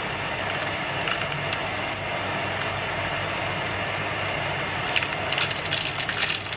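Block of cheese rubbed across a flat stainless-steel hand grater, giving short rasping scrapes: a few scattered strokes at first, then a quick dense run near the end.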